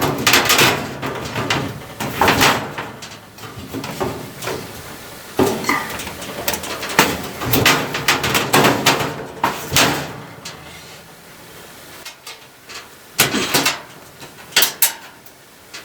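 A sheet-metal clothes dryer panel being handled and fitted back into place: irregular clattering, scraping and knocks, with a few sharp knocks near the end.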